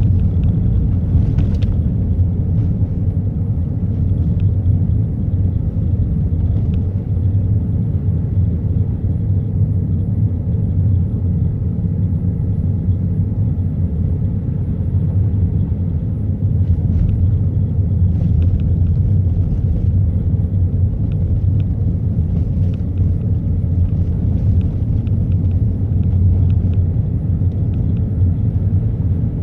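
Steady low rumble of a car's engine and tyres heard from inside the cabin while driving, with a few faint light clicks now and then.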